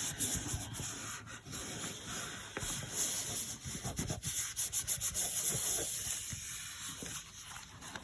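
Paper being rubbed and pressed down by hand onto a journal page to set the glue: an irregular dry rubbing and scuffing.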